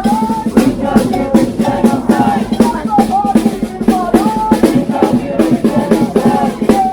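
Music with a busy drum beat and a melody line.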